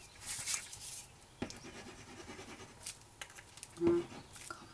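Paper and thin cardstock rustling and scraping under the hands as a patterned paper piece is pressed and smoothed onto a card. There is a sharp tap about one and a half seconds in.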